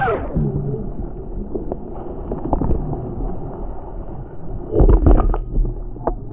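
Muffled rush of river water around an inflatable raft on rapids. About five seconds in there is a cluster of knocks with a deep rumble of wind buffeting the microphone.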